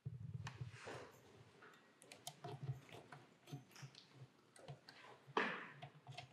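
Scattered faint clicks and taps at an uneven pace, with a short, louder rush of noise about five seconds in.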